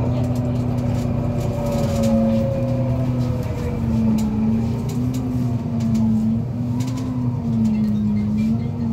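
Otokar Kent C-12 city bus driving along, heard from inside the passenger cabin: a steady engine and drivetrain hum that wavers slightly in pitch with the speed, with scattered light clicks and rattles.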